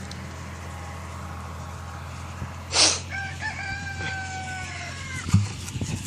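A rooster crows once, one long call of about two seconds starting about three seconds in, over the steady low drone of a tractor engine. Just before the crow comes a brief loud rush of noise, and near the end a low thump.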